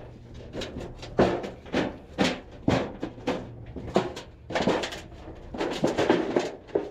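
Metal scrap pieces clanking and knocking against each other as they are handled in a dumpster: a long run of sharp knocks at irregular intervals.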